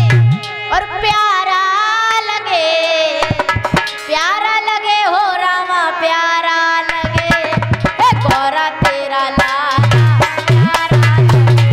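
A girl's voice singing a devotional Ganesh bhajan over music, with held instrumental notes and drum strikes; a heavy low beat comes in about seven seconds in and again near the end.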